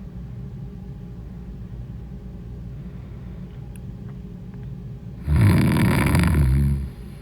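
A woman snoring in her sleep: one loud snore about five seconds in, lasting about a second and a half, over a steady low hum.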